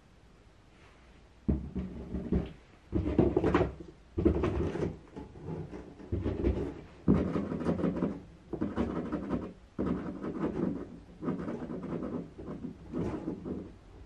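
A cat in a cardboard box pushing at a plastic pet-door flap, which rattles and knocks in its frame with dull thumps against the cardboard, in about ten short bouts. The flap is caught on something at its top and will not swing open.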